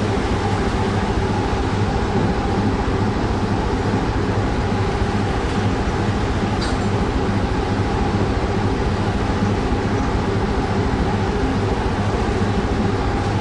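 A fishing trawler's engines and deck machinery running with a steady, throbbing drone while the trawl is hauled astern.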